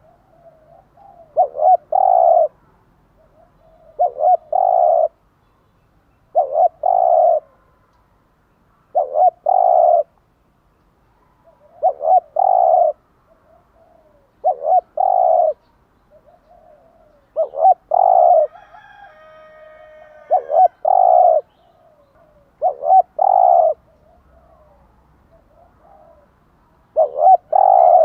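Spotted dove cooing in repeated phrases, each a couple of short notes and a longer coo, about every two to three seconds. A fainter, higher bird call comes in briefly near the middle.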